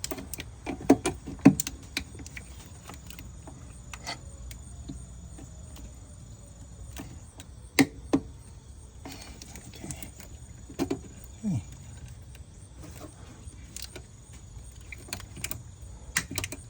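Scattered sharp clicks and knocks of car wiring-harness connectors being handled and fitted to an engine computer (ECM). The clicks are loudest about a second in and near the middle, with a short cluster near the end, over a steady low hum.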